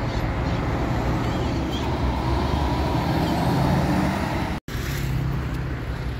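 Intercity coach's diesel engine running as the coach moves through the bus terminal, growing louder about three to four seconds in. The sound drops out completely for an instant a little after four and a half seconds.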